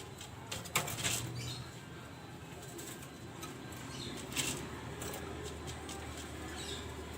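A caged Kelantan derkuku (spotted dove) stirring, with a few sharp flutters or taps about a second in and again past four seconds, over a steady low background.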